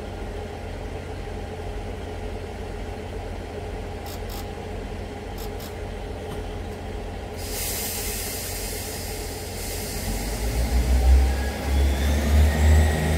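Class 158 diesel multiple unit's engines idling with a steady low hum; about ten seconds in the engines open up and grow louder with a pulsing beat as the train powers away.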